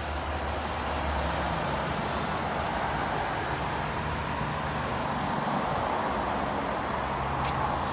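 Steady road traffic noise: the tyre and engine noise of passing vehicles, with a single short click near the end.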